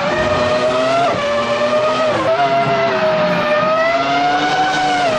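Formula One race car engine sound effect: a high-pitched engine note holding near one pitch at high revs, with small rises and dips.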